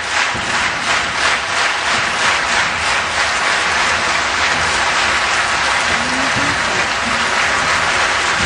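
Crowd applauding, at first clapping together in rhythm about three times a second, then breaking into steady, even applause.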